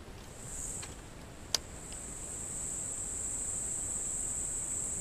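Insects buzzing in a steady, high-pitched chorus that swells in briefly near the start and then holds on, with a single sharp click about one and a half seconds in.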